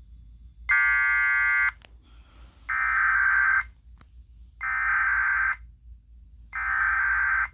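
Emergency Alert System encoder sending an alert: a one-second tone burst, then the three one-second bursts of a SAME header's digital data, about a second apart, encoding a Required Weekly Test.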